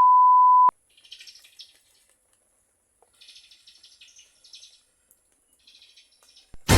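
A steady high beep tone that stops under a second in, then faint, scattered small birds chirping in short bouts.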